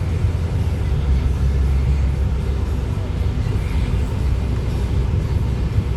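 Steady low rumble of engine and road noise inside the cabin of a 2018 Buick Cascada, with its turbocharged four-cylinder, while it is being driven.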